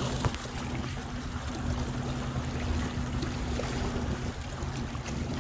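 Wind on the microphone over lapping shallow lake water, with a steady low motor hum that stops about four seconds in.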